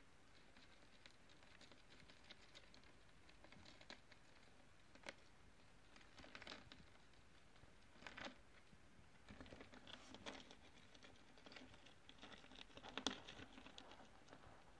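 Faint scratching and tapping from two male Lucihormetica verrucosa cockroaches scrabbling against each other and the clear plastic container while they fight, coming in scattered small clicks and short bursts, loudest near the end.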